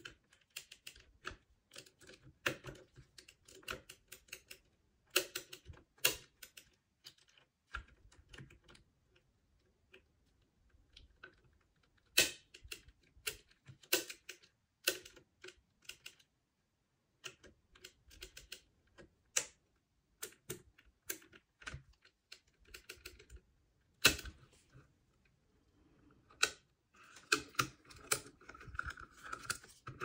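Lever-lock picking tools working inside a Union 3G220 mortice deadlock: irregular small metal clicks and scrapes of the pick against the levers, coming in clusters with pauses between. Near the end a denser run of clicking and scraping as the lock is turned and the bolt draws back.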